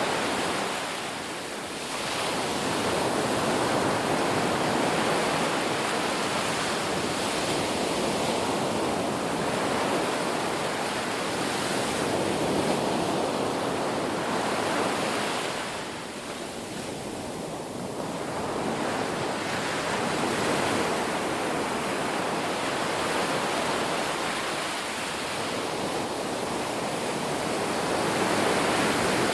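Ocean surf: waves breaking and washing in as a continuous rush that swells and eases slowly, dipping briefly about a second in and again around the middle.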